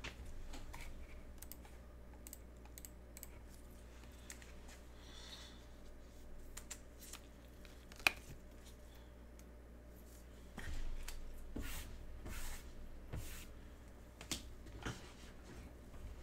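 Faint scattered clicks and taps, with one sharper click about eight seconds in and a busier run of taps in the last third.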